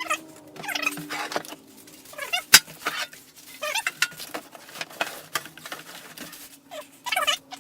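Polystyrene packing squeaking and creaking in irregular short strokes as it is worked loose from a cardboard box, with one sharp crack about two and a half seconds in.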